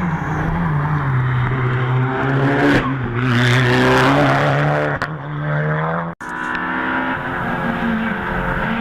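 Hill-climb race car engine running hard past the roadside, its pitch falling and rising through gear changes and loudest around three to four seconds in. The sound drops out abruptly for an instant about six seconds in.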